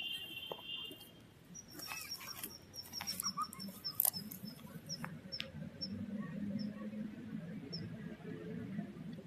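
A small bird calling: a run of short, high chirps, quick at first, then slowing and thinning out. Scattered clicks and crackles come in the middle, and a low rumble runs under the second half.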